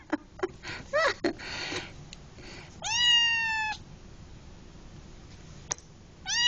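Kitten meowing inside a pet carrier, a long high meow about three seconds in and another beginning at the end, crying to be let out. In the first second or so a few sharp clicks and a short call come as it paws and shakes the carrier's wire door, with one more click near the end.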